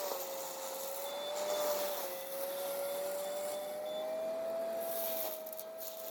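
Heavy land-clearing machinery running: one steady whine that slowly wavers in pitch over machine noise, with faint high beeping about a second in.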